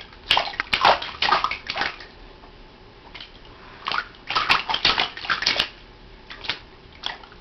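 A baby slapping and splashing shallow water with its hands in an inflatable baby bathtub. There is a flurry of splashes in the first two seconds, another about four seconds in, and a couple of single splashes near the end.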